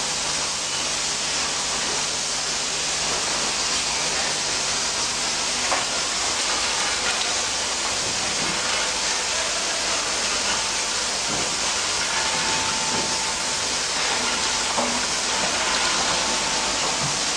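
Syringe assembly machines and vibratory bowl feeders running together on a factory floor: a steady, dense hiss-like din with scattered light clicks. A faint thin whine joins for a few seconds past the middle.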